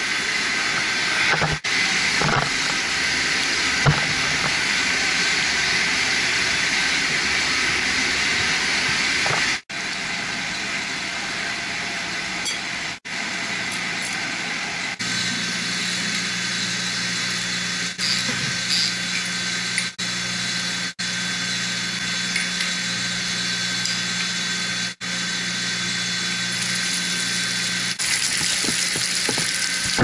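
Steady rushing hiss of water and running circulating pumps in a chiller plant pump room, broken by several brief dropouts. A low steady hum joins about halfway through.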